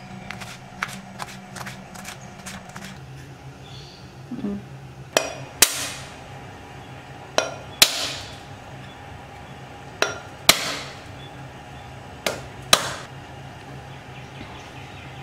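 A knife knocking on an ostrich egg's thick shell to crack it open: four pairs of hard, sharp knocks about two and a half seconds apart, each ringing briefly. A few light knife taps on a wooden chopping board come first.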